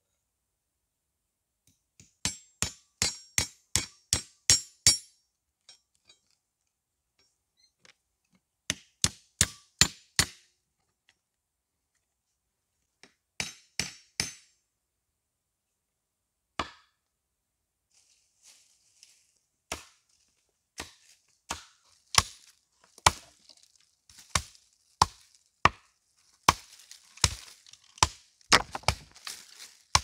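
Hatchet chopping wood: several short runs of quick, sharp blows, about three a second, with pauses between them. The blows come closer together near the end.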